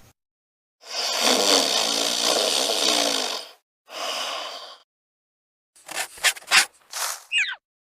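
Secretary bird calling: one long hoarse, rasping call of about three seconds, then a shorter one, followed by a few sharp clicks near the end.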